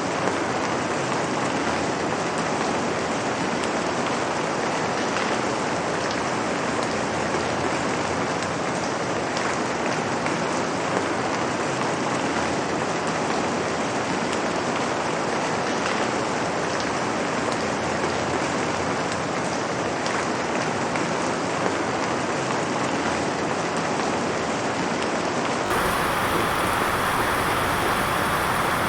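Steady rain, an even hiss of falling drops. About 26 seconds in it cuts abruptly to a different, brighter rain recording.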